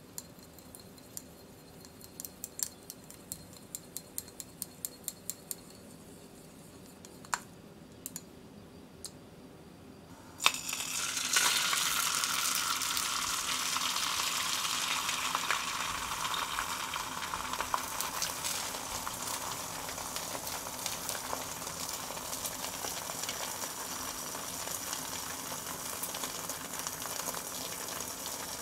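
Chopsticks beating an egg in a glass cup: a quick run of light clicks, then a few scattered taps. About ten seconds in, beaten egg hits a hot frying pan and sizzles steadily, loudest at first and easing slightly.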